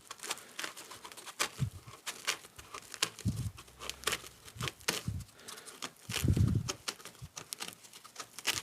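Cut pieces of layered tool-drawer foam being pulled and picked out by hand: scattered irregular clicks, light crackling and tearing, with a couple of duller handling knocks.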